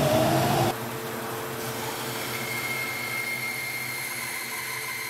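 A dust collection vacuum, switched on by remote, rises in pitch as its motor spins up. Within the first second it gives way to a bandsaw running steadily as it resaws a thick rough-sawn timber.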